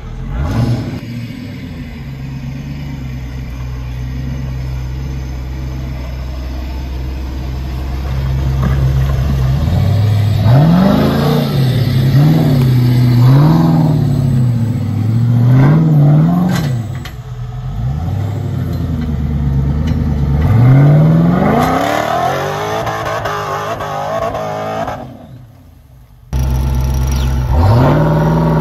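Highly modified Toyota LandCruiser winch-challenge truck's engine revving hard under load on a steep dirt climb. It holds steady for several seconds, then rises and falls in repeated quick revs, about one every second. The sound cuts away briefly near the end before the revving picks up again.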